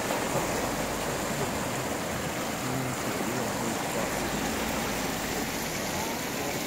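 Muddy flash-flood water rushing across a field in a steady, continuous wash.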